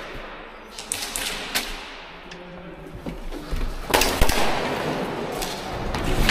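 Irregular sharp clicks and knocks, with a louder stretch of rustling and scuffing from about four seconds in.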